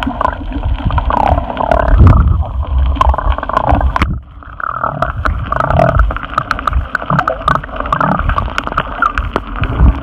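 Muffled underwater gurgling and bubbling of seawater heard through a camera held below the surface, with scattered clicks and knocks of water against the camera, and a brief lull about four seconds in.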